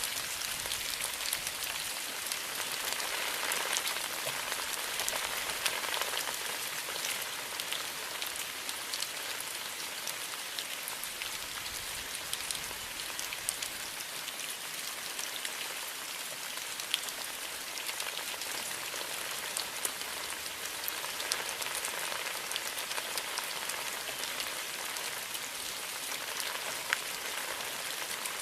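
Steady rain falling in a bamboo grove, an even hiss with many small scattered drop ticks.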